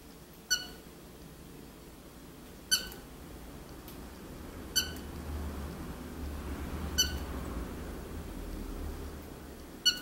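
Cockatiel giving short, single-note chirps, five of them about two seconds apart, with a faint low rumble rising and fading in the background during the later ones.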